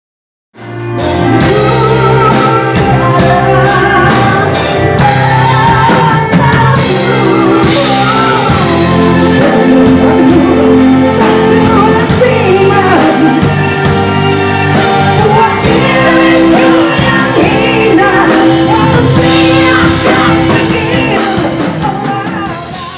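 Band with guitar playing a rock-tinged song with a duet of singers. It starts abruptly about half a second in and fades near the end.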